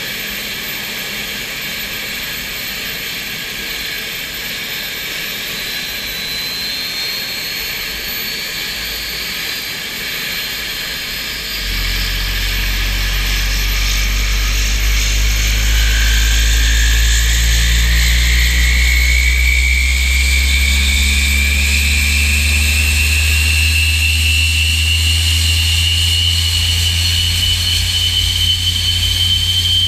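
SEPECAT Jaguar's Adour turbofan engine being started on the ground. At first there is a steady hissing whine. About twelve seconds in, a deep rumble comes in suddenly, and a whine then climbs slowly in pitch as the engine spools up.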